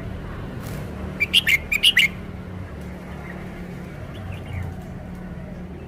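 Red-whiskered bulbul singing a quick phrase of about six sharp notes a little over a second in, with a few faint notes later. A steady low hum runs underneath.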